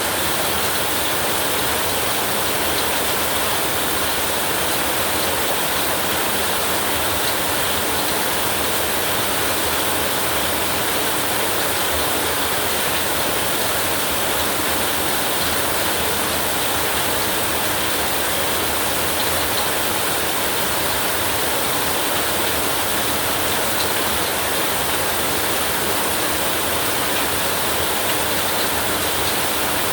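Heavy, torrential rain falling in a steady, unbroken hiss, with no thunder.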